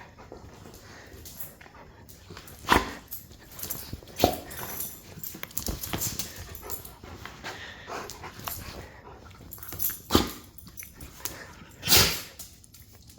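A pet dog making short whines and yips, with several short, sharp loud sounds spread through, the longest and loudest about twelve seconds in.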